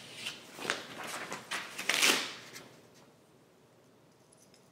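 Paper-backed vinyl decal sheet rustling and crinkling as it is handled and laid down, a run of rustles over about three seconds, loudest about two seconds in.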